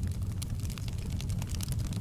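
Fire burning in a fireplace, crackling: many small, sharp crackles and pops at irregular intervals over a steady low rumble of the flames.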